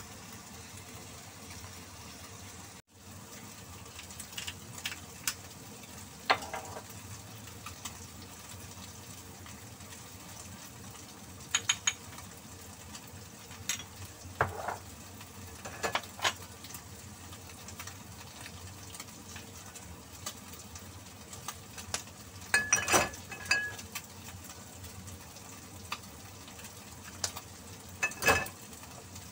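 Sliced meat frying in a non-stick pan with a steady sizzle. Now and then short clinks and knocks of kitchenware and utensils, with a quick run of them about three-quarters of the way through.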